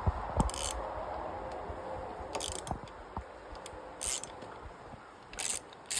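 Hand ratchet clicking in four short bursts, about one every second and a half to two seconds, with a few light knocks of tool on metal: working the 8 mm throttle tube bolt on a dirt bike's handlebar.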